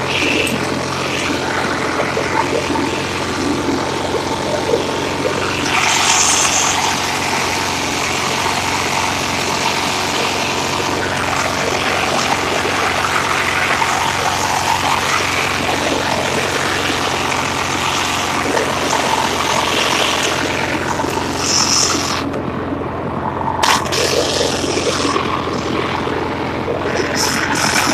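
Engine of a Craftsman 19.5 horsepower lawn tractor running steadily under way.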